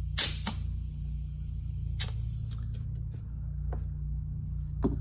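A few sharp clicks and taps from handling a tire inflator at a UTV tire's valve stem, two close together at the start, then one about two seconds in and another near the end, over a steady low hum.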